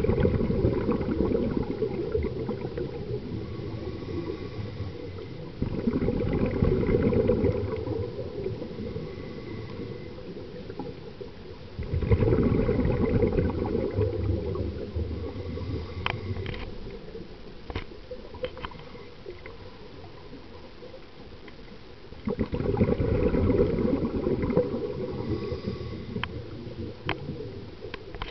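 Scuba diver's regulator underwater: exhaled air bubbles out in four bursts of two to three seconds each, with quieter stretches between breaths. Scattered sharp clicks come in the second half.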